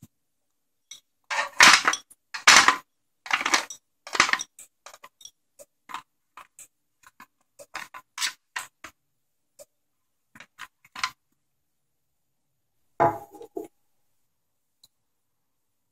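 Apple slices and cut vegetables dropped and pushed into a small aluminium foil pan: a burst of crinkling, clattering foil, then scattered light taps as the pieces are arranged. Near the end, a dish knocks once with a brief ring.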